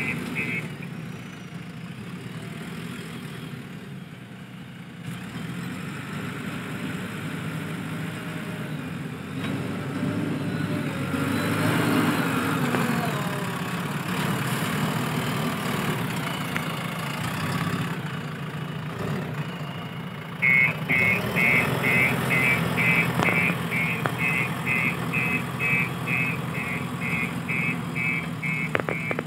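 Backhoe loader's diesel engine running steadily, rising louder for a few seconds near the middle. About two-thirds of the way in, a rapid, evenly repeating high beeping starts, typical of the machine's reversing alarm.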